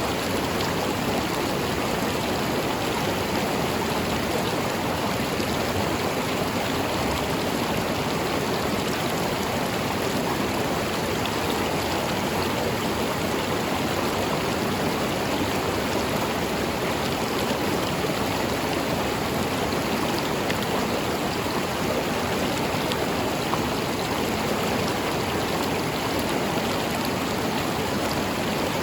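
River water flowing over rocks, a steady rushing and burbling without let-up.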